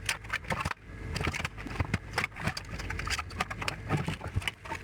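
Irregular clicks, knocks and scrapes of hand-disassembly: a screwdriver and the plastic and metal parts of a CRT TV/VCR combo being handled, over a low steady hum.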